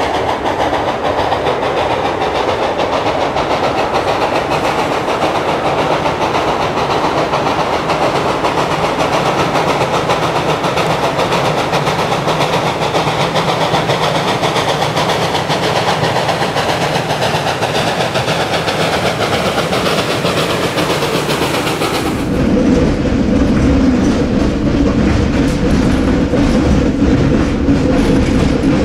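Steam-hauled freight train: Western Maryland 2-8-0 steam locomotive 734 working past with its freight cars rolling and clattering over the rails. About two-thirds of the way through it changes abruptly to the louder, deeper rumble and wheel clatter heard from aboard the moving train.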